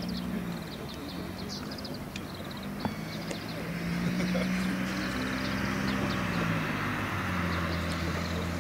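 Road traffic: a steady engine hum that shifts pitch, with tyre noise swelling about halfway through and a lower hum joining near the end. Small birds chirp over it.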